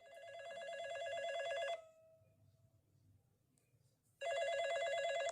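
Telephone ringing: two trilling rings, the first swelling in and lasting under two seconds, the second starting about two and a half seconds later.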